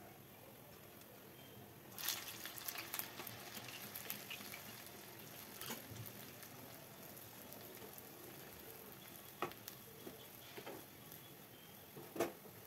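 Urad dal medu vadas deep-frying in hot oil with a steady sizzle. About two seconds in, a fresh vada of batter goes into the oil and the sizzling crackles loudly for a couple of seconds. A metal slotted spatula knocks lightly against the pan near the end.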